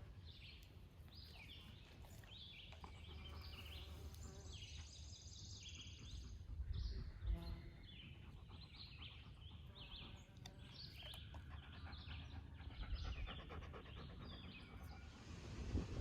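Small birds chirping repeatedly, with a faint low rumble underneath and a brief louder low sound about seven seconds in.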